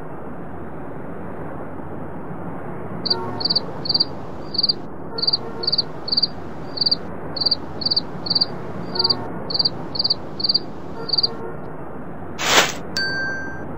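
Cricket chirps, short and high, repeating about two to three times a second over a steady background hiss from about three seconds in. Near the end a sudden loud metallic clang rings on.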